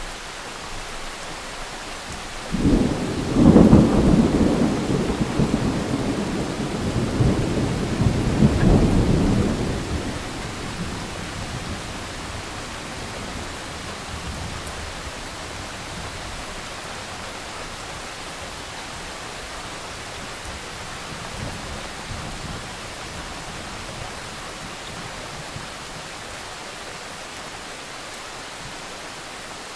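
Thunder over steady rain. A thunderclap breaks about two and a half seconds in and rolls on for some seven seconds before fading. A fainter rumble of thunder comes later.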